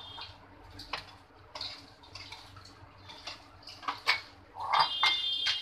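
Steel knife clinking and scraping against a steel plate while pieces of steamed dhokla are cut and lifted out, a handful of sharp clicks. Near the end a louder high-pitched chirping sound joins in.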